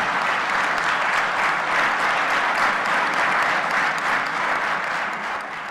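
Crowd applauding: many hands clapping in a dense, steady patter that eases off near the end.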